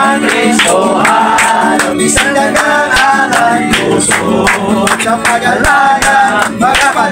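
A group of men singing together, clapping their hands in time about twice a second.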